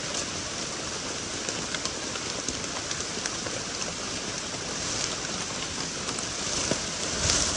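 Steady heavy rain falling on forest foliage and leaf litter: a dense, even hiss sprinkled with small drop ticks. A brief louder rustle comes near the end.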